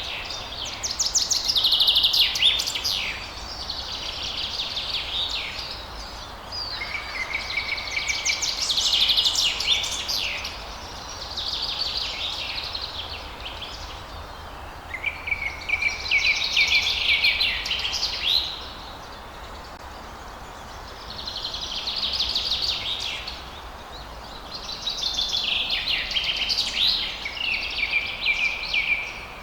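Songbirds singing: trilled phrases of about two to three seconds each, one after another with short pauses, over a faint steady background hiss.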